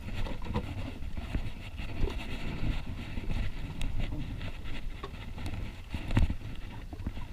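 Steady low rumble of a fishing boat at sea, with wind and water noise and a few short knocks on board, the loudest about six seconds in.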